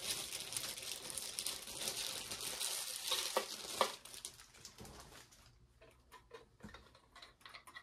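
Packaging being handled: a busy crinkling rustle with many small clicks for about four seconds, then only a few scattered light clicks and taps.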